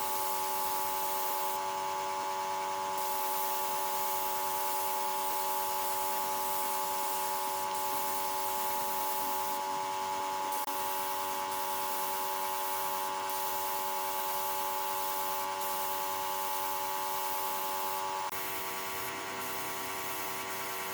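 An electric power tool running steadily: a constant motor whine over a hiss, dropping a little in level near the end.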